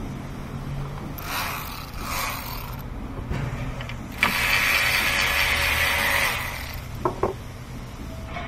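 Hand ratchet wrench clicking in short runs, then a longer, louder run of about two seconds, as bolts on the engine's intake are worked loose; two sharp clicks follow near the end.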